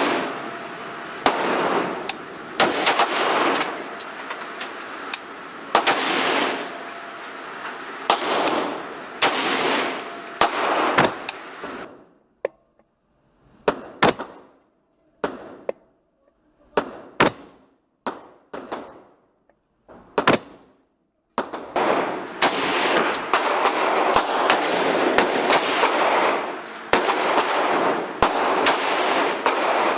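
7.62x39 AR-15 rifle fired in single shots about one to two seconds apart. Each sharp report is followed by a long echo in an indoor range.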